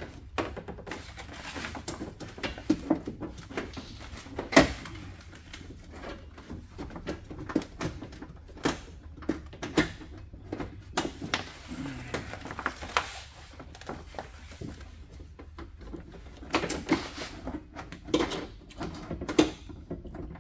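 Power window regulator and motor assembly being worked into a Chevrolet Silverado door shell by hand: irregular clicks, knocks and metal clanks, with a sharper knock about four and a half seconds in.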